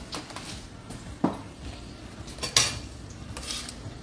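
Kitchen clatter of utensils against cookware: a few sharp knocks and clinks of a spoon on pots, pans and a serving bowl, the loudest two about a second in and about two and a half seconds in.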